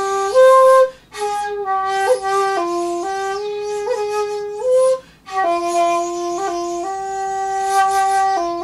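Solo shakuhachi, an end-blown bamboo flute, playing a honkyoku: long held notes with a breathy tone, stepping from pitch to pitch with small quick flicks between notes. It breaks off for breath twice, about a second in and about five seconds in.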